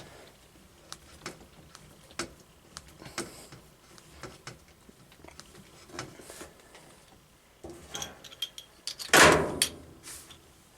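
Scattered light clicks and metallic ticks of hands and tools working the threaded couplings of a washing machine's water supply hoses, with one louder scraping clunk about nine seconds in.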